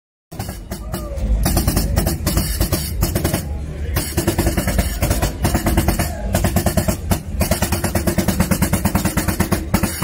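Music with a fast, steady drum beat, starting after a brief silent gap at the very beginning.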